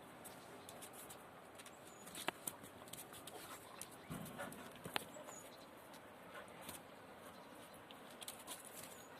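Gaddi dog and other dogs at play: faint scuffling with a few sharp clicks, and a short low sound about four seconds in.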